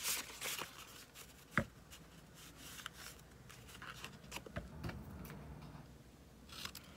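Scissors snipping a stamped paper tag, with the paper rustling as it is handled and turned: faint, scattered rustles and short clicks, one sharper click about a second and a half in.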